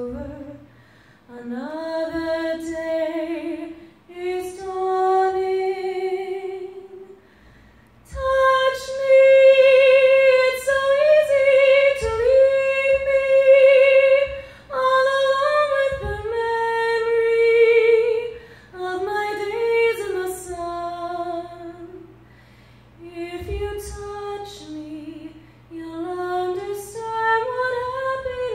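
A woman singing a slow melody solo into a microphone, in sustained phrases with vibrato on the held notes and short breaks between phrases; the middle phrases are the loudest.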